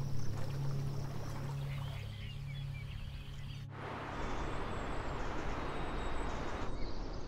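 River water rushing over shallow rocky rapids, a steady hiss that cuts in abruptly about four seconds in and stops shortly before the end. Before it, a low steady hum with a few faint chirps.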